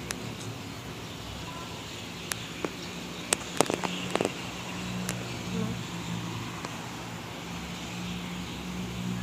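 Handling noise on a phone's microphone: a run of sharp clicks and knocks between about two and four seconds in, over a steady low hum.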